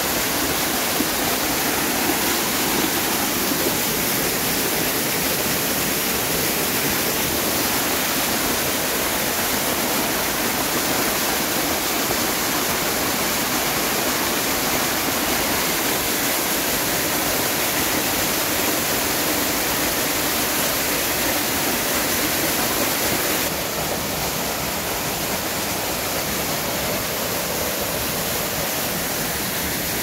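Small mountain-stream waterfall pouring over and between boulders: a steady, close rush of falling and splashing water, a little quieter from about three-quarters of the way through.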